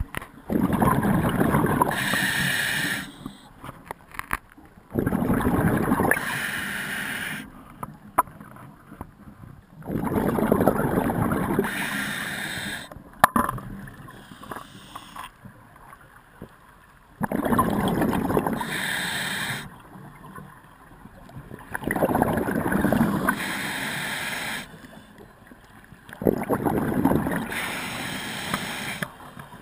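Scuba diver breathing through a regulator underwater: six long rushes of exhaled bubbles, each two to three seconds, coming every five seconds or so, with quieter stretches between. A single sharp click sounds about thirteen seconds in.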